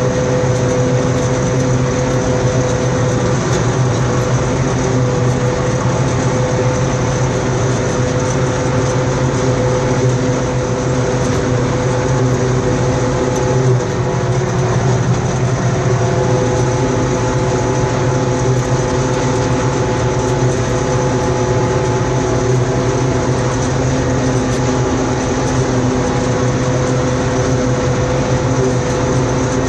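Deutz-Fahr M35.70 combine harvester running steadily at constant engine speed.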